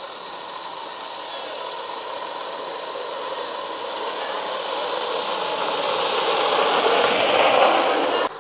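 Wooden carruzzuna cart rolling downhill on asphalt on ball-bearing wheels, a rattling rumble that grows louder as it approaches. It cuts off suddenly near the end.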